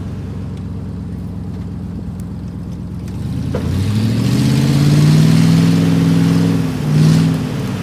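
Lifted Nissan Xterra's engine running steadily, then revving up about three and a half seconds in as it drives through the mud, holding high revs, easing off briefly and revving again once more near the end.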